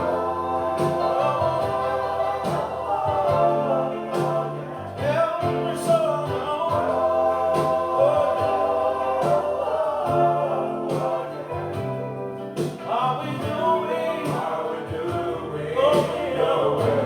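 Gospel music: voices singing long, held lines over instrumental backing with steady low notes.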